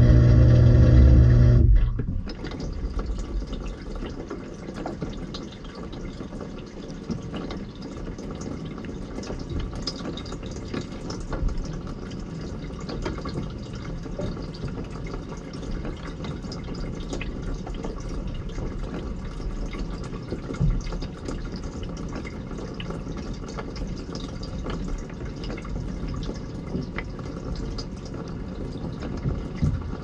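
Dishwasher pump running with a steady hum, cutting off suddenly about two seconds in; after that, water dripping and trickling inside the tub, with scattered small drips.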